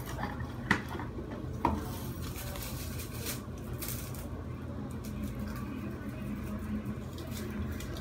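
Plastic cling wrap being handled: two sharp knocks in the first two seconds as the roll and its box are worked on a wooden floor, then faint crinkling and rustling as the wrap is unrolled and stretched across a doorway.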